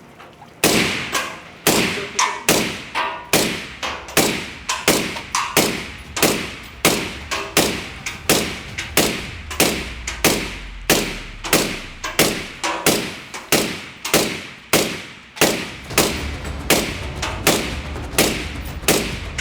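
Suppressed 5.56 NATO rifle shots through a 3D-printed titanium B&T Print-X SRBS-Ti suppressor, fired steadily at about two shots a second in a sustained-fire heat test.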